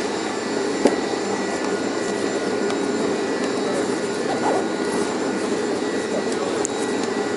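Steady rushing, machine-like noise, even in level throughout, with one sharp click about a second in.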